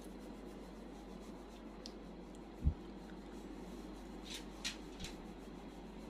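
Faint rubbing and rustling of a hand on a dog's fur close to the microphone, with a single low thump about two and a half seconds in and a couple of short scratchy rustles a little past four seconds.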